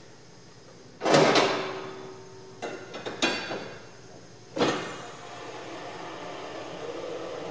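Metal tools and parts clanking in a car repair shop: a loud clang with a short ringing decay about a second in, a few lighter clinks around three seconds, and another sharp clank a little later.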